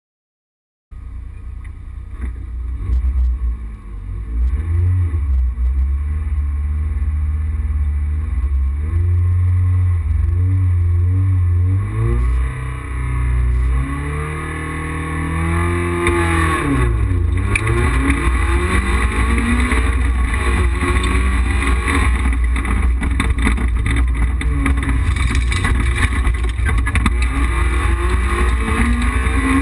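Rally car engine heard from inside the cockpit, starting about a second in. The revs are held steady for several seconds, then the pitch climbs, dips sharply and climbs again through gear changes, and the engine runs hard at high revs for the rest.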